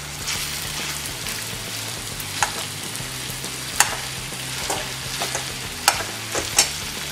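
Coarsely mashed boiled potatoes being stirred with a steel spoon in a hot metal kadhai, the oil sizzling in a steady hiss. The spoon clinks sharply against the pan a few times.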